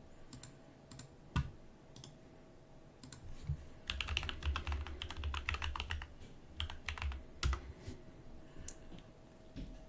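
Typing on a computer keyboard: a few single key or mouse clicks, then a quick burst of keystrokes about four seconds in as a filename is typed, and a few more single clicks near the end.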